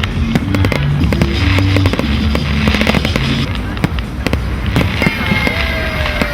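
Rapid firework bangs and crackles over music with steady low notes. About five seconds in, bagpipes strike up, their drones and a sliding note coming in under the bangs.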